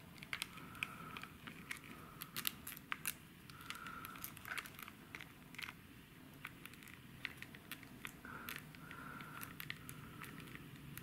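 Small screwdriver turning a tiny screw in the plastic frame of camera glasses: faint irregular clicks and short squeaks as the tip bites and slips on a stubborn screw.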